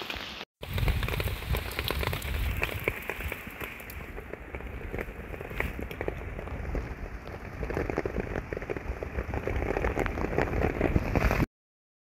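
Rain pattering steadily, with many sharp individual drop taps over a low rumble. It cuts off abruptly about a second before the end.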